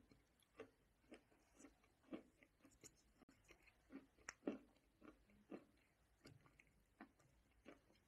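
Close-miked chewing of crunchy white chunks: a steady run of short, crisp crunches, about two a second.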